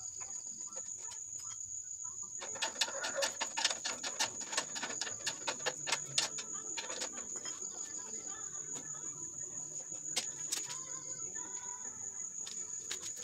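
Crickets chirping steadily, with a quick run of clicks and taps from about two and a half seconds in that thins out by about seven seconds, from hand work fitting parts on the grass chopper's sheet-metal hopper.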